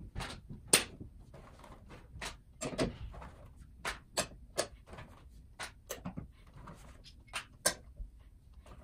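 Irregular sharp clicks and taps of steel chef knives being drawn from their sheaths and set onto a magnetic knife rack, the blades clicking as hidden rare-earth magnets grab them. The two loudest clicks come under a second in and near the end.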